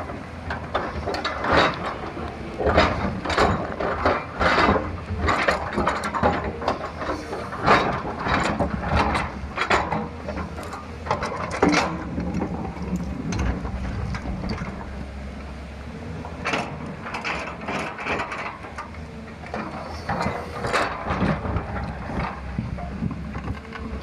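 JCB excavator at work: its diesel engine runs steadily under a string of irregular metallic clanks and scrapes from the bucket and digging. The clanks come thick and fast at first, ease off around the middle, and pick up again later.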